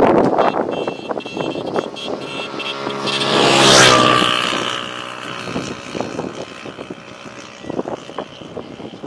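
A motor vehicle passing close by on the road: its engine note grows louder to a peak about four seconds in, then drops in pitch and fades as it moves away.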